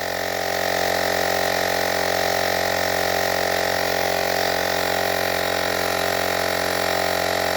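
Battery-powered portable tyre inflator running steadily while pumping up a motorcycle tyre, a buzzing electric pump with a steady tone and no change in pitch.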